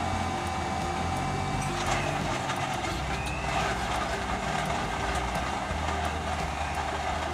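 Countertop blender running steadily, its jar full of milk and ice being blended into a milk frappe.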